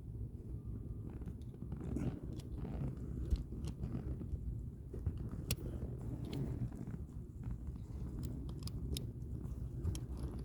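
Scattered small clicks and scrapes of hands fitting a seat-belt part back into a rear seat, over a steady low rumble.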